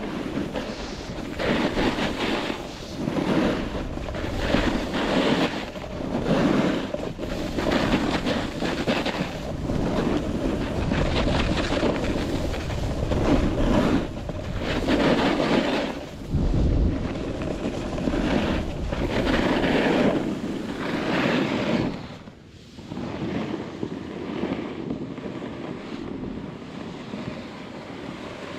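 Edges scraping across snow in a run of turns down a ski slope, swelling about every one and a half to two seconds, with wind buffeting the microphone. The scraping eases to a steadier, softer glide about 22 seconds in.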